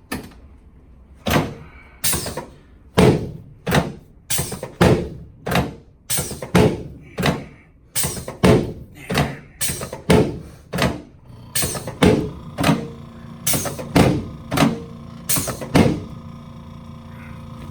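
A long series of sharp thumps, about two dozen at roughly two a second, unevenly spaced, each with a short ring. A steady hum comes in about two-thirds of the way through.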